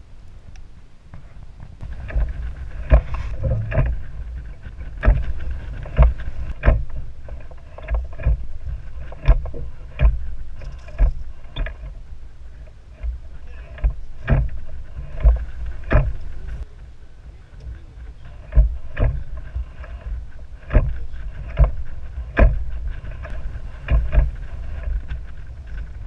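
Lake water slapping against the hull of a drifting pontoon boat: irregular sharp knocks, about one a second, over a steady low rumble, starting about two seconds in.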